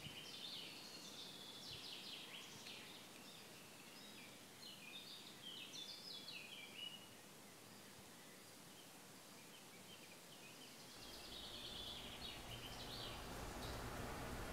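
Faint birdsong: songbirds chirping in quick repeated phrases for about the first seven seconds and again near the end. A low steady hum comes in about eleven seconds in.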